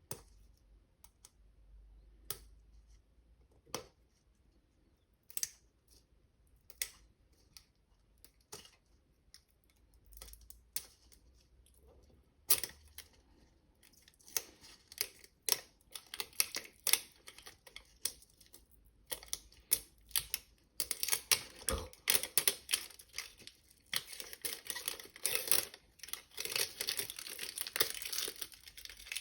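Toy packaging being handled and unwrapped: scattered clicks and taps for the first half, then dense crinkling and rustling of wrapping, busiest near the end.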